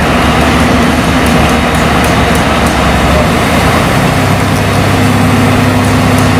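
Loud, continuous noise of heavy diesel construction machinery running, with a steady low engine hum that shifts a little higher in pitch about three to four seconds in.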